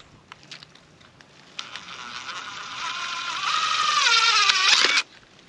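Power drill driving a screw: a few light clicks, then the motor whine starts about a second and a half in, grows louder, wavers in pitch as the screw bites, and stops suddenly near the end.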